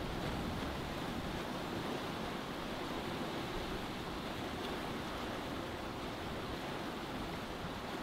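Steady rush of sea water and wind aboard a sailboat under sail, an even wash with no distinct events.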